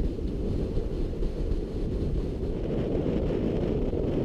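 Wind buffeting the microphone on a moving boat: a steady low rumble.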